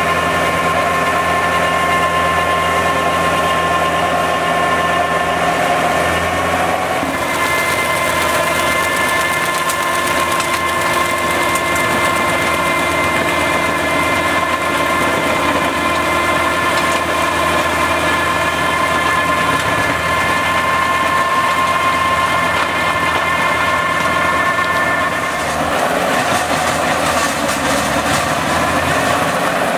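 Valentini Skorpion forestry mulcher on a tracked ATV running under load, with a steady mechanical whine as it shreds brush and saplings. The shredding noise grows about seven seconds in, and the pitch shifts near the end.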